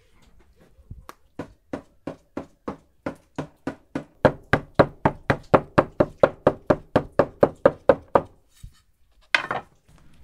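Wooden stick pricking holes in rolled-out saj bread dough and knocking on the wooden board beneath: a run of sharp wooden knocks that speeds up to about four a second, then stops. One louder thud follows about a second later.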